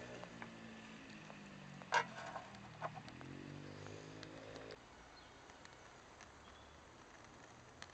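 A motor engine running steadily, its pitch rising before it cuts off abruptly after about five seconds, with a few sharp clicks around two seconds in, the loudest of them. After that only faint outdoor ambience with a few small chirps.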